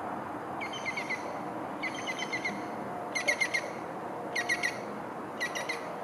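A small bird calling: five short bursts of four or five quick chirps each, about one burst a second, over a steady low background noise.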